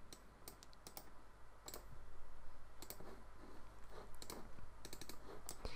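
Faint clicks of a computer mouse, some single and some in quick runs, over a low steady hum.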